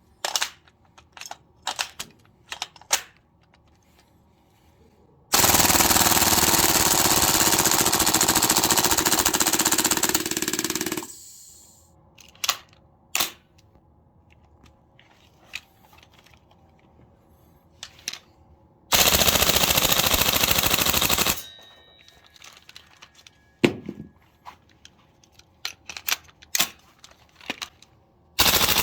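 Gas blowback airsoft guns firing full auto, first an APFG MPX, then a VFC HK416D GBBR. Scattered mechanical clicks and clacks of handling lead into a rapid rattle of bolt cycling that lasts about six seconds. After more clicks comes a shorter burst of about two and a half seconds, and another begins right at the end.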